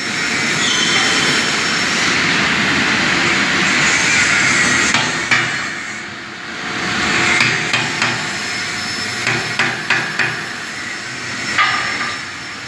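Metalworking noise on heavy steel: a steady rushing noise with a series of sharp metallic knocks like hammer blows, several of them close together in the second half.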